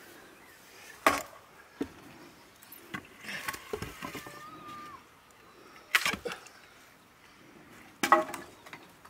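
Axe splitting firewood: a handful of sharp chopping blows of the blade into a log, spread a second to a few seconds apart, with quieter knocks between them.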